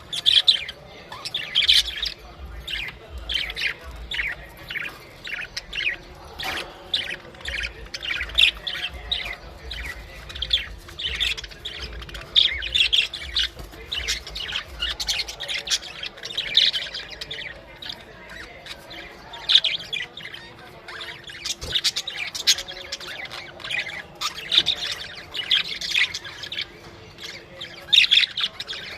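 Budgerigars chattering and warbling: a dense, irregular run of short chirps and squawks with no pauses.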